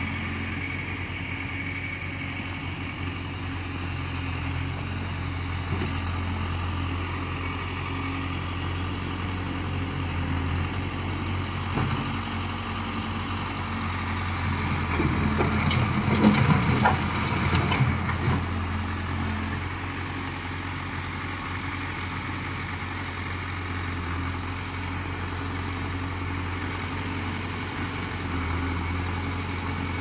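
Engine of a 1960s tractor-loader-backhoe running steadily at low speed. It swells louder for a few seconds about halfway through as the machine works the rock, with a few clanks.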